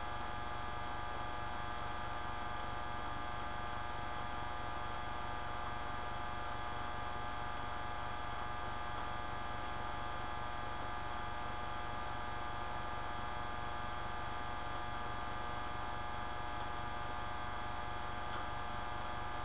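Steady electrical mains hum and buzz, unchanging throughout, with nothing else heard over it.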